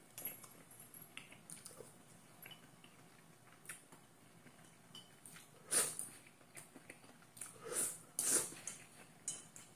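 Someone eating shirataki noodles with chopsticks: light clicks of chopsticks against the plate and quiet chewing, with a few louder slurps of noodles from the plate held at the mouth in the second half.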